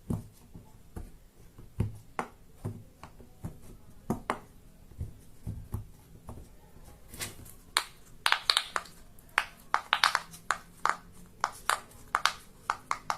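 Fidget toys being clicked and popped by hand: a long, irregular series of sharp clicks. They are scattered at first and come faster and louder from about halfway through.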